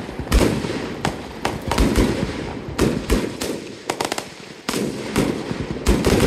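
Fireworks display: a rapid, irregular string of bangs from aerial shells launching and bursting, with crackle in between. A short lull about two-thirds of the way through, then the bangs resume.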